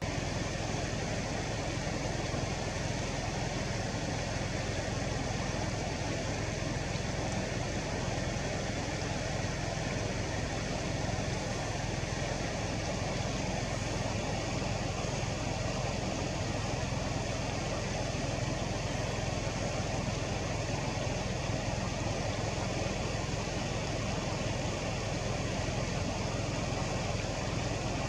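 An engine idling steadily: a constant low hum under a hiss.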